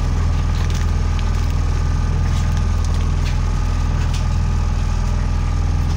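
A fishing boat's onboard engine running steadily, a constant low drone, with a few faint clicks over it.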